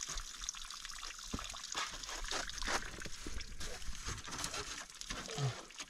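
Rustling and scraping with many small clicks and knocks, as hands and clothing rub against rock and snow while reaching into a rock crevice.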